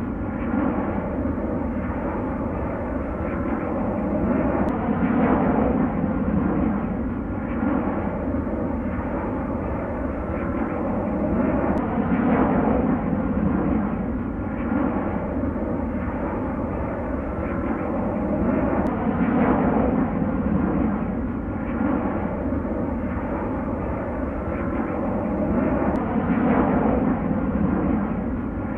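Steady jet airliner engine roar, swelling and easing about every seven seconds in an even repeat.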